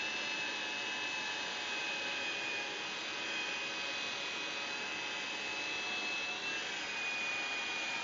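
Handheld hairdryer running steadily on its medium setting: an even rush of blown air with a thin, high motor whine, heating a LiPo battery's label to soften its adhesive.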